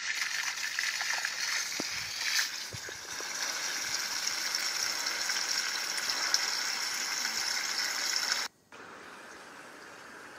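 Water running steadily out of a garden hose into a pool on the ground. It cuts off abruptly about eight and a half seconds in, and a fainter steady hiss follows.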